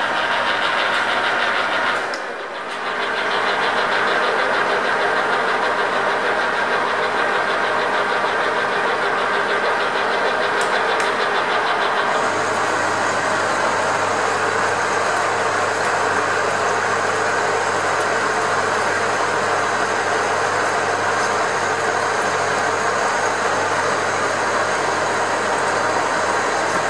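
Metal lathe running while a boring bar cuts inside the bore of a turned metal boss: a steady machining noise. It dips briefly about two seconds in, and about twelve seconds in the sound changes as a low hum joins it.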